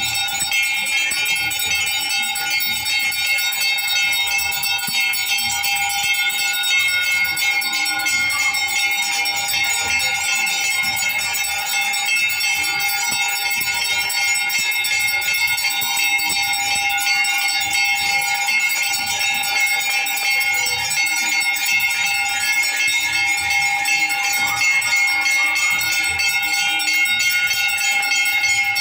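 Temple bells ringing nonstop during an aarti, with many bell tones overlapping in a steady ringing. A low, pulsing beat runs underneath.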